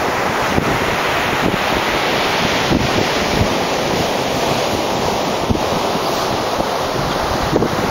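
Small waves breaking and washing up a sandy beach, a steady rush of surf, with wind buffeting the microphone in irregular low rumbles.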